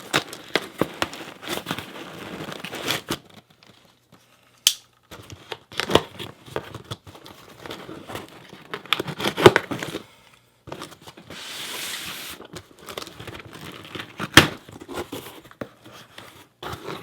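Cardboard shipping box being opened by hand: packing tape tearing, and cardboard and packing material crinkling and rustling, with irregular clicks and knocks.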